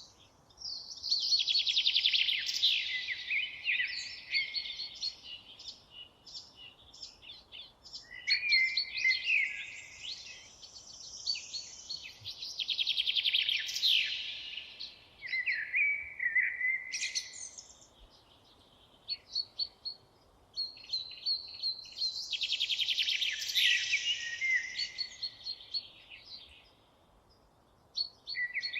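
Songbirds singing in long, rapid warbling and trilling phrases a few seconds each, repeating with short pauses between them, over a faint steady hiss.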